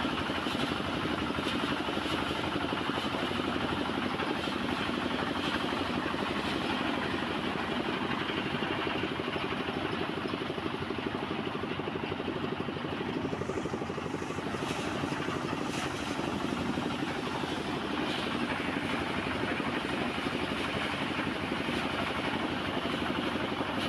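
Engine of a rice harvesting machine running steadily.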